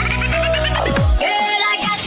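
Electronic dance music with a heavy bass, the bass dropping out for a moment partway through and then falling sweeps returning.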